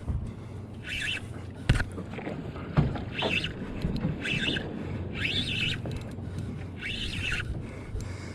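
Spinning reel cranked in short whirring bursts, about one a second, each rising and falling in pitch, as the angler pumps the rod and winds in a hooked tuna. Water and boat noise run steadily beneath, with two sharp knocks in the first three seconds.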